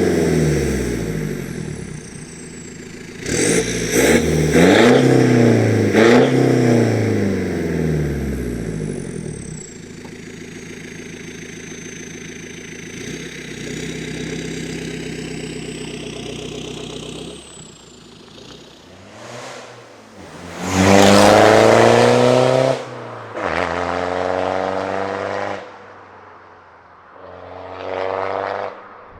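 Straight-piped BMW 320d's four-cylinder turbodiesel, with no downpipe or DPF, revved hard several times, then pulling up through the revs three times. A thin, high turbo whistle sinks slowly in pitch as the engine settles to a lower steady note in between.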